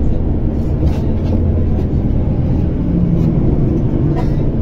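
Tram running along its track, heard from inside the car: a steady low rumble, with a low motor hum coming in about halfway and a few light clicks and rattles.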